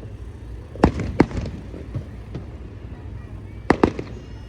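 Four sharp bangs in two quick pairs, one pair about a second in and the other near the end, over a steady low rumble.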